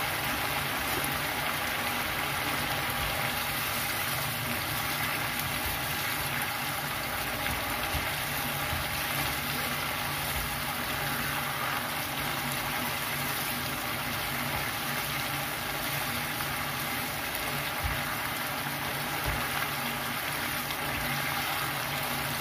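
Shrimp in a thin yellow spice sauce simmering in a frying pan, a steady bubbling and sizzling that keeps an even level throughout.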